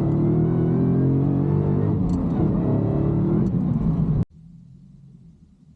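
Whipple-supercharged Dodge Challenger V8 running hard under acceleration, its pitch rising in the first second or so. The sound cuts off abruptly about four seconds in.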